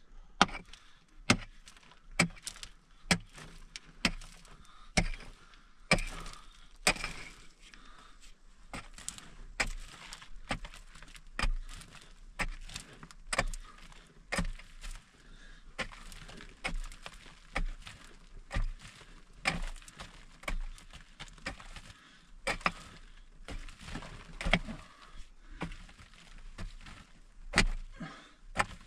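A short pickaxe striking hard-packed earth in a cave wall, one blow about every second, each a sharp crack.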